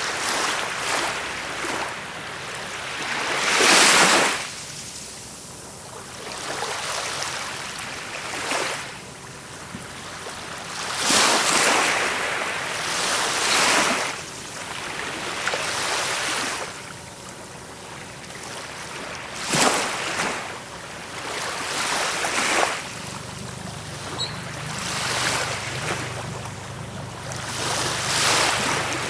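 Small waves washing onto a sandy shore, each wash a rising and fading hiss of about a second, coming every two to three seconds. A low steady hum joins in the last quarter.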